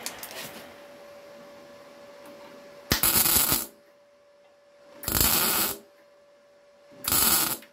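MIG welder tack-welding a new sheet-metal repair panel in place: three short bursts of arc, each under a second and about two seconds apart, with a faint steady hum between them.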